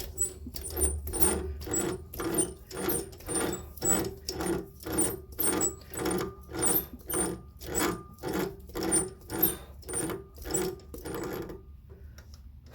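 Lathe wound by hand to screw-cut a thread, the tool taking a cut: an even rhythmic rasping, about two strokes a second, that stops about a second before the end.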